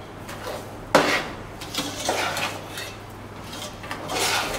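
A spoon stirring and scraping thick rice kheer around a cooking pot, with a few sharp clinks against the pot, the loudest about a second in.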